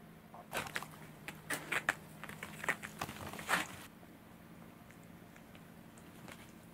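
A cat scuffling with a string caught on its tail: a quick run of scratchy scrapes and taps from its claws and paws, and from its teeth on the string, for about three seconds, then only a faint steady hum.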